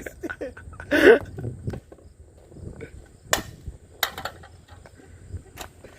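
Crickets keep up a steady high-pitched chirring, with a short vocal outburst about a second in and a few sharp, separate knocks later on.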